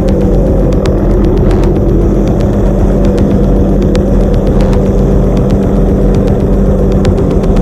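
Hughes 500 (MH-6 Little Bird) helicopter's turbine and rotor running steadily, heard loud from on board as a constant drone with a strong low hum.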